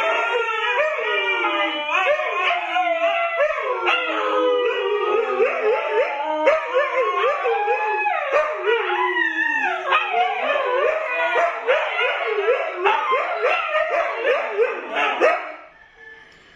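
Several Siberian huskies howling together in overlapping rising and falling calls mixed with short yips. They stop suddenly near the end.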